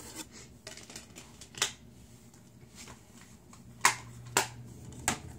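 Plastic Blu-ray cases being handled: four sharp clicks and snaps, the loudest about four seconds in, with faint handling ticks between.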